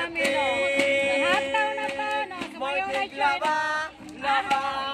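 A man singing to his own acoustic guitar strumming, with a woman singing along; one note is held for about two seconds near the start.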